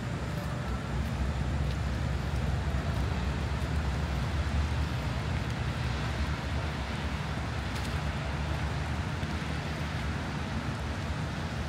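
Strong wind buffeting the microphone: a steady low rumble with a fainter hiss above it.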